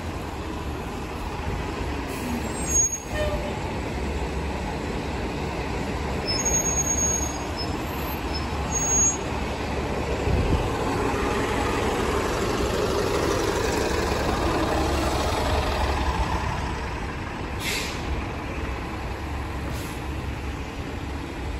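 TTC city bus driving past and pulling away on a wet street, its engine running over the hiss of tyres on wet pavement and growing louder about halfway through.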